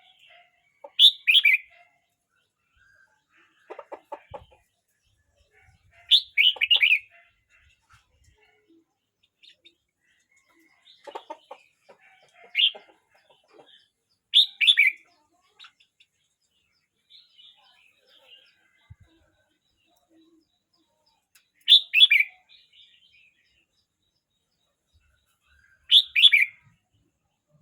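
Red-whiskered bulbul singing: short, bright, warbled song phrases, each about a second long, repeated every few seconds with pauses between.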